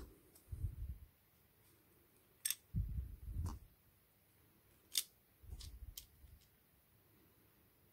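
Small parts of a Hot Wheels die-cast toy car being handled and fitted together: the plastic interior and windscreen pressed into the body, giving a few light clicks, two of them sharper, among soft bumps of fingers and parts.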